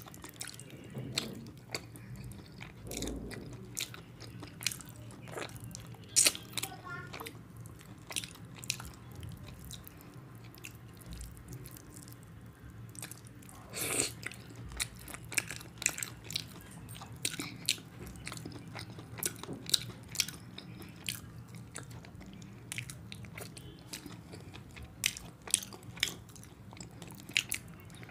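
Close-miked eating of rice and curry by hand: wet chewing, lip smacks and mouth clicks, irregular and unbroken, with a few louder smacks, over a faint steady low hum.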